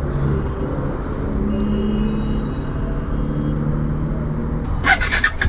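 Bajaj Dominar 400's single-cylinder engine idling steadily while the motorcycle stands still, with a few sharp clicks near the end.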